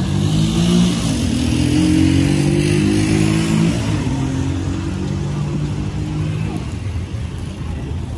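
A motor vehicle engine revving, its pitch stepping up and down through several short held notes, strongest for about four seconds and then easing off, over steady street traffic noise.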